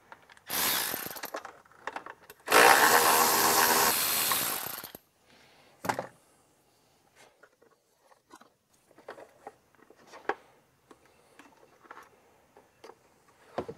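A power tool runs in two bursts, a short one of about a second and then a longer one of about two and a half seconds. A sharp click follows, then faint scattered clicks and taps.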